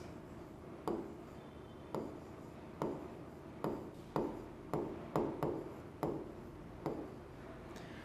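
Stylus writing on an interactive display's glass screen: about ten short strokes and taps, each a quick tick with a brief falling squeak.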